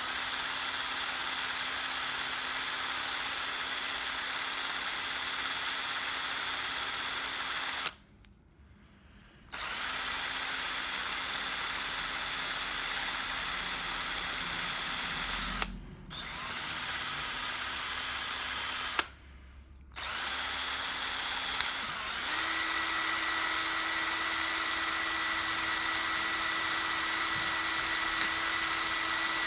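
Small high-speed rotary tool with a wire brush running against metal lock parts, a steady motor whine under a hiss. It stops twice for a second or two and starts again, and about two-thirds of the way through its pitch steps up and holds.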